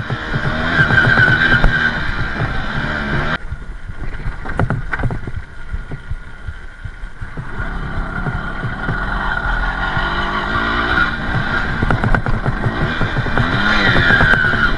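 Balkan 50 dirt bike's 50 cc engine running under way on a dirt trail. It drops abruptly about three seconds in and stays quieter for a few seconds, with a few knocks. It then builds back up and revs up and down near the end.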